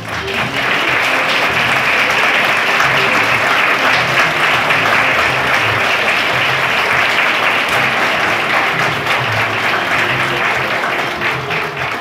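Audience applauding, with background music underneath; the clapping swells at the start and dies down near the end.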